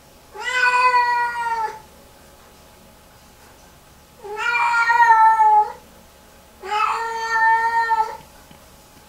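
Lynx point Siamese cat yowling: three long, drawn-out cries of about a second and a half each, spaced a few seconds apart, each held on a steady pitch. It is a distress yowl that the owner calls a meltdown.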